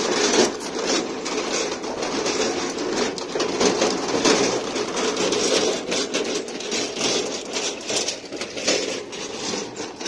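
Hand cart loaded with a washing machine rolling over a rough gravel lane, its wheels crunching and the cart and load rattling continuously with many small knocks.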